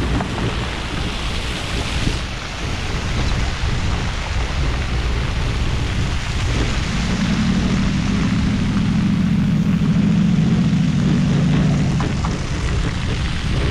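Wind rushing over the microphone of a moving road bicycle, with the tyres rumbling over brick pavers. A steadier low hum joins from about seven seconds in until about twelve.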